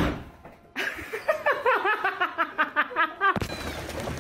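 A person laughing in a quick run of high-pitched ha-ha pulses, starting about a second in. Near the end the laughter cuts off abruptly into steady background noise.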